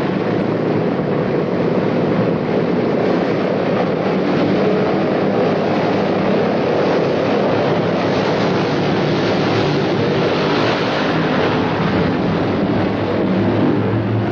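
B-17 bomber's radial piston engines running with propellers turning, a loud steady drone that brightens slightly around the middle.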